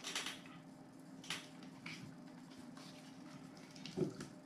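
Handling noise of a 20V lithium-ion tool battery pack and its plastic charger: a few brief scrapes and clicks as the battery is slid off the charger, with a louder bump near the end.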